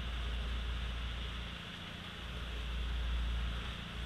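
Fishing boat's engine running with a steady hum, over a low, wavering rumble.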